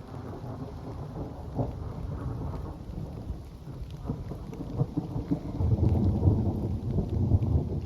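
Rain falling in a forest, with scattered drop ticks and a low rumble that swells louder in the second half.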